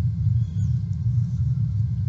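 Steady low rumble on an outdoor nest-cam microphone, with a faint high chirp about half a second in.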